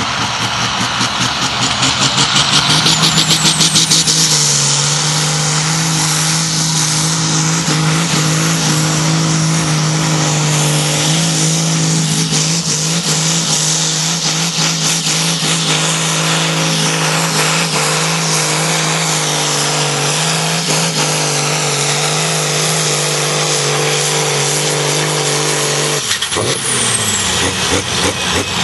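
Deutz pulling tractor's diesel engine running at full throttle under heavy load as it drags a weight-transfer sled. The engine note climbs over the first few seconds and then holds steady. Near the end the note drops suddenly.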